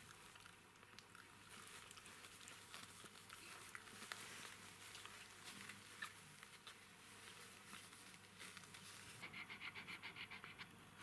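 Faint small clicks, squeaks and rustling from newborn Jack Russell Terrier puppies. Near the end comes a quick, even run of soft pulses, about eight a second.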